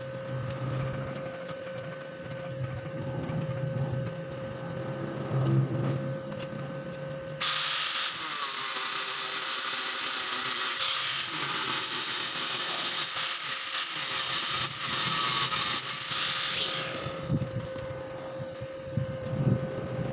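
A power tool runs loudly for about ten seconds, starting suddenly about seven seconds in and stopping near seventeen seconds, with quieter working noises before and after.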